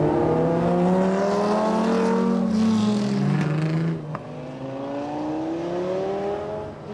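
Lamborghini Gallardo V10 engines accelerating away, their pitch climbing as they rev. About four seconds in the level drops, and a second Gallardo's engine rises in pitch as it pulls away.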